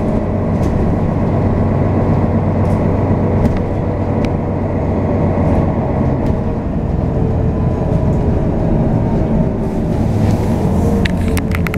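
City bus driving along, heard from inside the passenger cabin: a steady engine and drivetrain drone with a slight drift in pitch, and a few short clicks about eleven seconds in.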